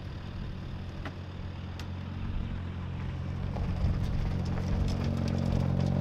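Car engine running at steady low revs, growing louder as the car rolls slowly past close by on dirt, with a few small clicks over it.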